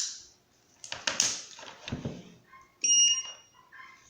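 A few handling clicks and knocks, then one short electronic beep from the control unit of a dental lab micromotor as it is switched on, about three seconds in.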